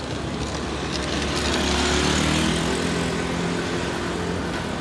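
Small motor scooter engine passing close by, growing louder to a peak about two seconds in and then fading as it rides away, over general street noise.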